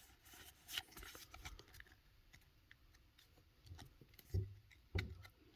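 Faint rustling and light clicks of Pokémon trading cards from a freshly opened booster pack being handled and slid apart, with two soft thumps near the end.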